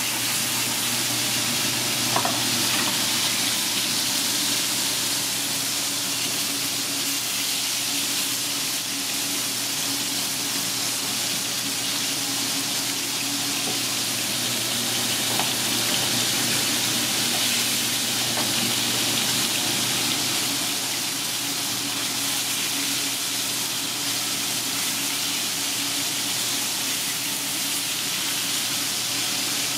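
Meat frying in hot oil in a pan, first meatballs and then steaks searing, with a steady sizzling hiss. A light click or two cuts through, about two seconds in and again midway.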